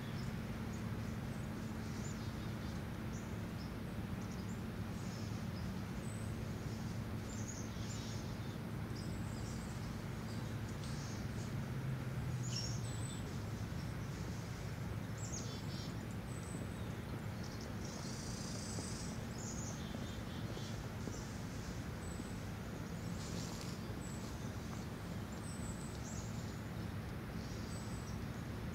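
Outdoor ambience: a steady low rumble with a faint hum, over which small birds give short, high chirps scattered throughout, with a longer call at about two-thirds of the way in.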